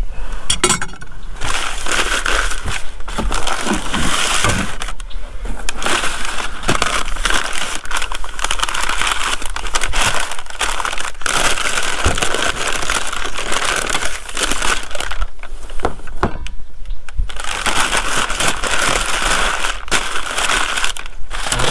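Crinkling and rustling of packing material as parts are unwrapped and handled, going on almost throughout with a few brief pauses.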